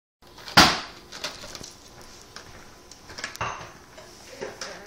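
A plastic blister-packed toy being handled by a baby on a tile floor: irregular slaps, knocks and crinkles of the plastic pack against the tiles. The loudest slap comes about half a second in and another strong one about three and a half seconds in.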